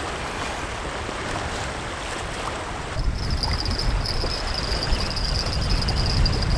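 Sea water washing and lapping with wind. About three seconds in, wind rumble on the microphone gets heavier and a steady high-pitched whine starts.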